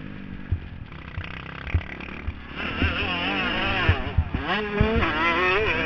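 Kawasaki KX250F four-stroke single-cylinder motocross engine heard from a helmet camera: running softer through a turn, then revving hard from about two and a half seconds in, its pitch rising and falling as the throttle is worked. A few dull thumps are heard along the way.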